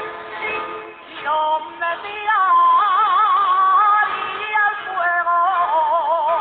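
A Riojan jota played from a cassette tape, dull with no treble. A plucked-string accompaniment strums, then a solo jota singer comes in about a second in and holds long, high notes with a wide vibrato.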